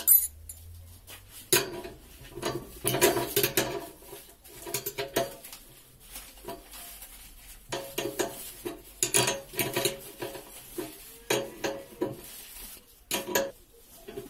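Open-end steel wrench clinking and scraping against the nut on a honey extractor's belt pulley as the nut is tightened down, in irregular bursts of sharp metallic clicks with short pauses between.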